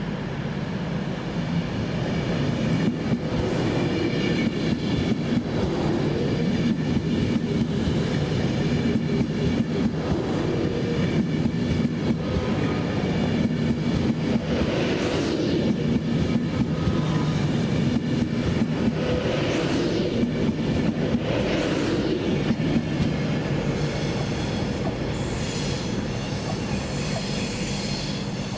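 A train running through the station, a continuous rumble of wheels on rail with a steady low hum, and a few brief higher-pitched surges about halfway through.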